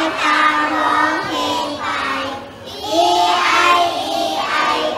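A group of young children singing a song together in unison, with a short break a little past two seconds before the next line.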